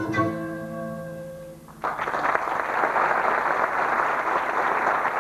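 A folk band's final chord on guitar and wind instruments is held and fades away. About two seconds in, audience applause breaks out suddenly and carries on steadily.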